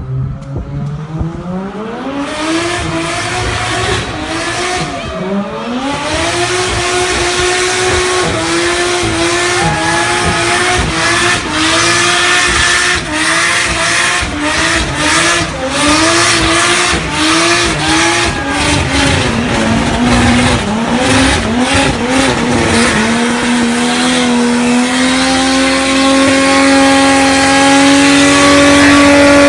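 Holden VL Calais Turbo's RB30ET turbocharged straight-six revving hard in a burnout, its pitch rising and falling over and over while the rear tyres squeal and fry against the road. Near the end the engine holds a steady high rev and grows louder as the car comes close.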